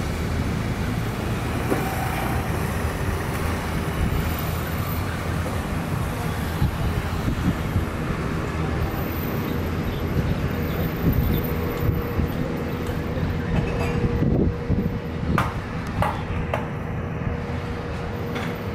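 Airbus A320neo's CFM LEAP turbofan engines running at taxi idle as the airliner taxis past, a steady low rumble with a thin steady hum coming in about halfway.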